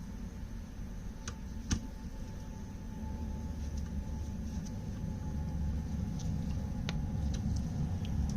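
A few sharp, separate clicks and ticks of hand tools and small metal carburetor parts being handled during assembly, over a steady low hum.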